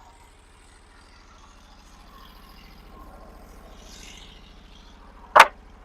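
Norwood HD36 sawmill's gasoline engine idling steadily, with a single sharp knock about five seconds in.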